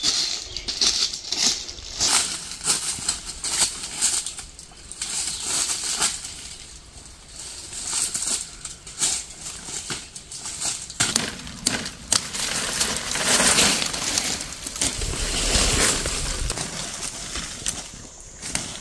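Footsteps crunching through dry leaf litter, with leaves and twigs rustling. About eleven seconds in, the crackling turns into a denser stretch of rustling and scraping in the leaves that lasts a few seconds.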